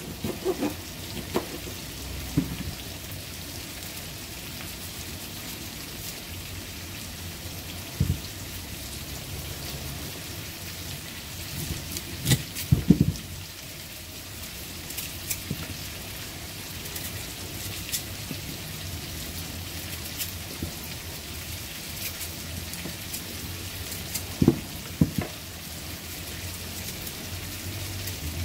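Diced chocho (chayote) and carrots with thyme and herbs sizzling in oil in a frying pan: a steady hiss with scattered pops. A few louder knocks stand out, about halfway through and again near the end.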